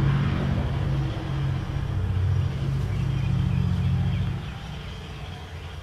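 A low, steady rumble that dies away about four and a half seconds in.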